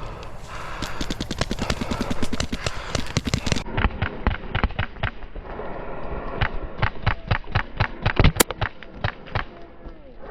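Paintball markers firing rapid strings of shots, several pops a second, with one especially sharp crack a little past the middle. Wind rumbles on the microphone underneath.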